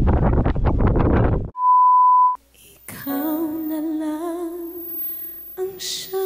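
Wind buffeting the microphone for about a second and a half, cut off by a steady high beep that lasts under a second. After a short gap, a song with a singing voice begins.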